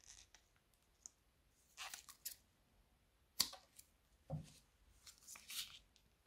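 Scattered crinkling and clicking from hands handling slime-making materials, with one sharp snip-like click about three and a half seconds in and a soft low thump just after.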